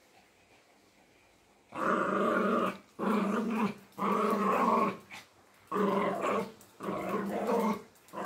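Pomeranian growling in play-fight as it bites and shakes a stuffed toy: five growls of about a second each, starting a couple of seconds in.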